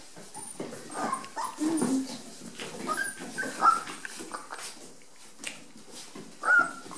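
Five-week-old Rat Terrier puppies whimpering and yipping in short high-pitched calls, one of them whining as if upset.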